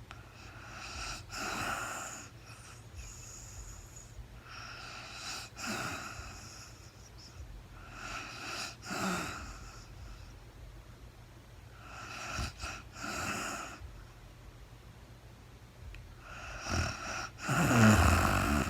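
A sleeping woman snoring, in slow breaths about every four seconds. The snore near the end is the loudest and deepest.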